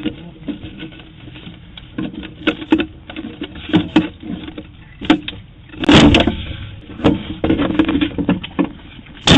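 A house door being forced by intruders, picked up by a doorbell camera's microphone: a string of sharp bangs and knocks, with the loudest burst about six seconds in and another at the very end. The door withstands the attempt.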